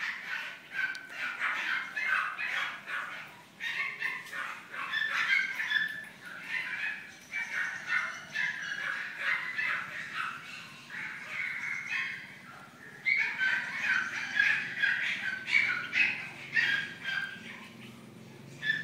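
Black and tan Pomeranian yipping and barking over and over in short, high-pitched barks, with a brief lull about two-thirds of the way in.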